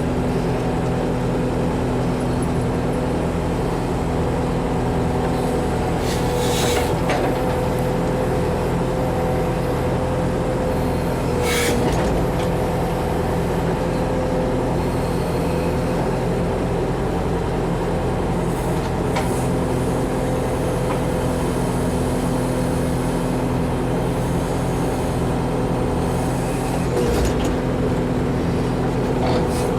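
Backhoe's diesel engine running steadily while it digs a trench, with a few short, sharp noises over it.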